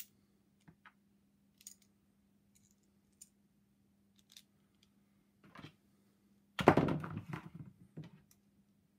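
Small plastic clicks as the parts of a steam vacuum's electromagnetic water pump are handled and fitted back together, with a louder cluster of rattling clicks about six and a half seconds in, lasting about a second.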